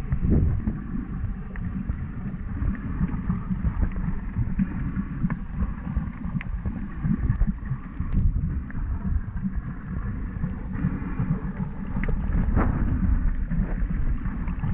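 Underwater sound picked up by a camera in a waterproof housing: a muffled, uneven low rumble with a few faint clicks scattered through it.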